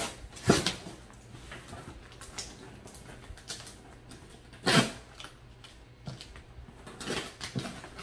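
Cardboard box and its packing being worked open by hand: scraping, rustling and small clicks, with two short sharp noises, one about half a second in and a louder one nearly five seconds in.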